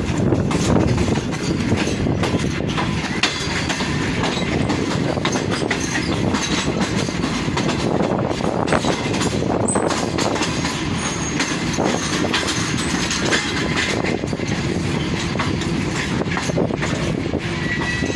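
Passenger train running through without stopping: a steady rumble of the coaches with wheels clicking over rail joints and track.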